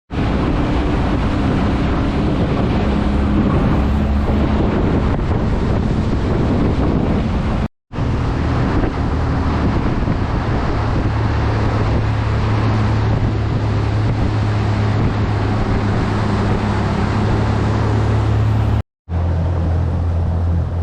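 Small boat's outboard motor running steadily underway, with wind buffeting the microphone and water rushing past the hull. The sound drops out briefly twice at edits.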